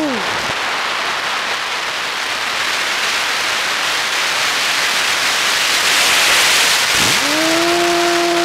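Air rushing over an FPV model airplane's onboard microphone while it glides with the motor throttled off: the motor's whine drops away right at the start, leaving only wind noise, which grows louder about six seconds in. Near the end the motor spins back up with a rising whine and settles to a steady tone.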